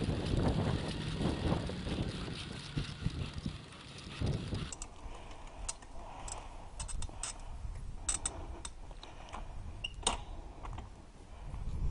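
Bicycle rolling along a campsite lane: a low rumble for the first four seconds or so, then irregular clicks and rattles from the bike.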